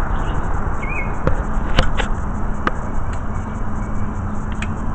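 Steady city street and traffic noise, with a few sharp clicks from the caulking gun as its trigger is squeezed to push sealant into a concrete sidewalk expansion joint.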